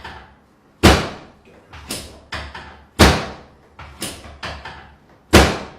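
A run of loud, sharp cracks from body cracking. The big cracks come about a second in, at about three seconds and again near the end, with smaller cracks between them.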